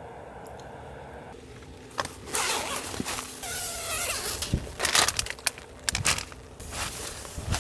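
Irregular handling noises: rustling, scraping and clicking of gear, starting about two seconds in after a steadier hiss.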